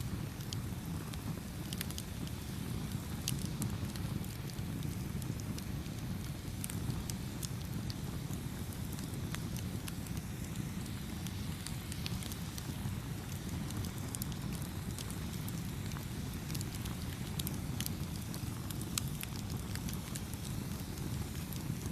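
Campfire burning: a steady low rush of flames with scattered sharp crackles and pops throughout.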